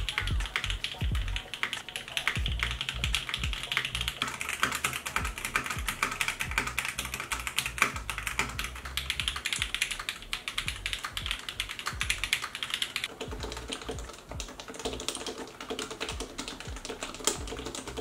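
Custom mechanical keyboards being typed on: a fast, continuous stream of clacking keystrokes. About thirteen seconds in the keystrokes turn lower and deeper in pitch as another board is typed on.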